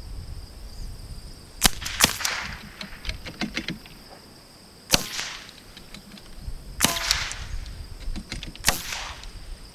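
.22 LR bolt-action rimfire rifles firing: five sharp cracks, two in quick succession about two seconds in, then single shots roughly every two seconds, each with a short trailing echo.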